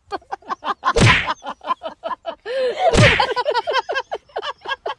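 Two loud swishing whooshes, about two seconds apart, over a quick run of short chirping notes.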